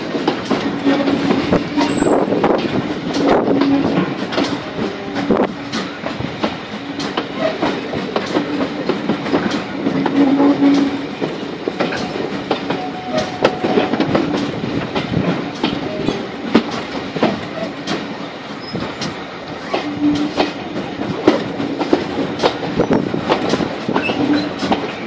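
Wheels of a heritage railway coach running over jointed track, clicking at uneven intervals, with a low tone that swells and fades every few seconds.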